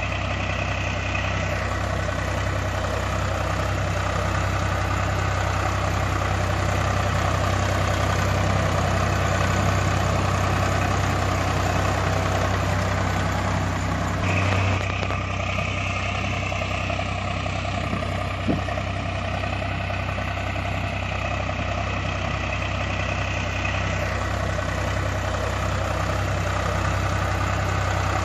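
Heavy tractor engine idling steadily with a low, regular pulse, laid over toy tractors that make no engine sound themselves. The sound shifts abruptly about halfway through.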